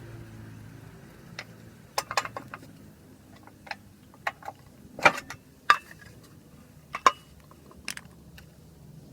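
Irregular sharp metallic clinks and knocks of hand tools and metal parts being handled while a motorcycle's belt drive is taken apart, about a dozen strikes with the loudest near the middle.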